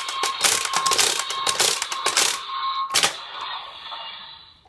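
Daikaiten Cannon toy playing an electronic sound effect through its small built-in speaker: a dense, clattering run of crackling blasts, then one sharp bang about three seconds in that fades out and cuts off just before the end.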